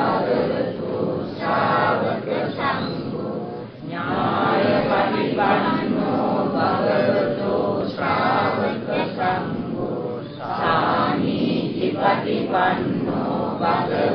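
Many voices chanting Pali Buddhist verses in unison, a slow recitation in praise of the Sangha, with short breaks between phrases.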